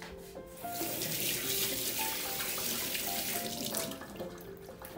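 Kitchen tap running into a sink for about three seconds as hands are rinsed, with a steady splashing hiss that starts about half a second in and stops a second before the end.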